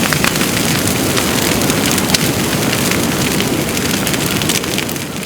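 Heavy rain with a low rolling rumble of thunder, a dense steady downpour that fades a little near the end.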